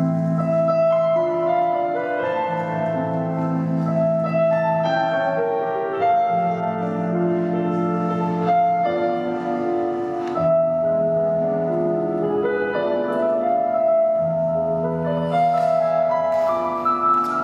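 Slow classical piano music with held chords and a melody line, played as a figure skater's free-skate program music.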